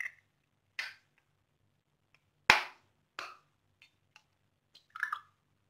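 Raw eggs being cracked open into a steel glass: a few separate sharp knocks and shell crackles, the loudest about two and a half seconds in, with a small cluster of clicks about five seconds in.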